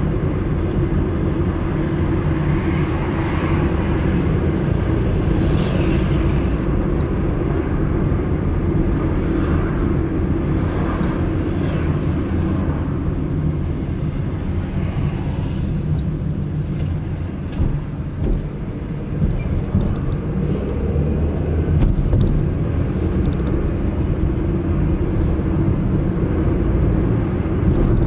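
A car driving through city streets: a steady low rumble of engine and road noise, with a few faint brief sounds of traffic over it.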